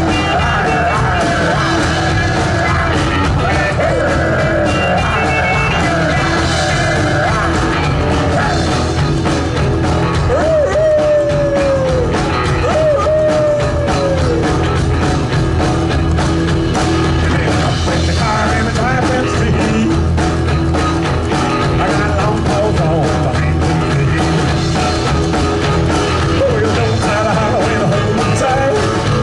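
Live rock-and-roll band playing an instrumental break, with two bent, falling lead notes near the middle.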